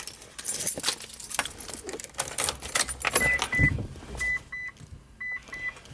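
Car keys jangling and clicking, then a thump, followed by a high electronic warning chime from a Mitsubishi Lancer Evolution VIII beeping in short, uneven pulses once the key is put in to switch the car on.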